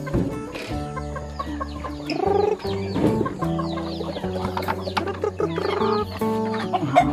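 Chickens clucking as they peck at food, over background music of long held notes.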